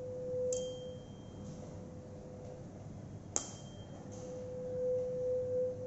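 A 512 Hz tuning fork is struck twice, about three seconds apart, each strike a sharp tap with a brief high ping. It is held over the neck of a glass Helmholtz resonator and gives a steady hum that swells after each strike. The resonator's air volume of about 66 ml is the one found to give the loudest sound with this fork.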